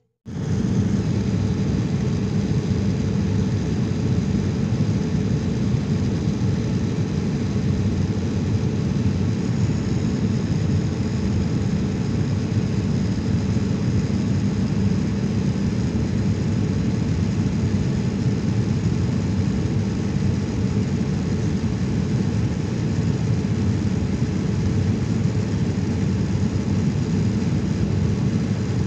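Steady cabin noise of a jet airliner in flight, a low, even rushing drone heard from a passenger seat. It cuts in abruptly at the very start and then holds level.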